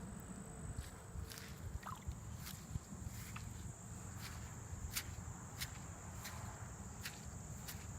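Footsteps walking over rain-soaked ground, a step about every two-thirds of a second, over a steady high-pitched insect chorus.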